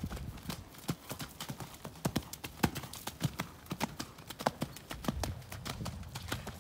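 Hoofbeats of a Friesian horse trotting under a rider on a wet sand arena, a steady rhythm of sharp footfalls.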